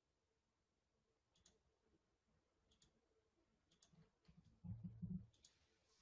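Faint computer mouse clicks, about half a dozen spaced roughly a second apart, while a trading chart is scrolled and rescaled on screen, with a brief low rumble near the end; otherwise near silence.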